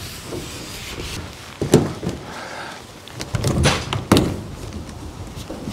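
A man clambering onto a pitched Nortent Vern 2 four-season tent, putting his full body weight on its poles and fabric: a knock a little under two seconds in and two more around four seconds in, amid shuffling and rustling.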